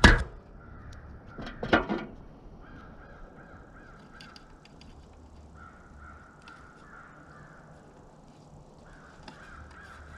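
Electrical tape being pulled off the roll and wrapped around spliced feeder-timer wires, a rasping squeal that comes three times, about a second and a half each. Two loud short sounds come near the start.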